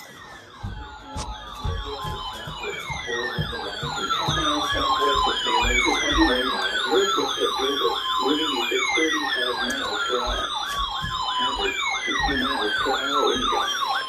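Electronic sirens sounding together: a fast warbling yelp about four times a second, with a falling wail that repeats every two and a half seconds or so. Irregular low thumps run underneath.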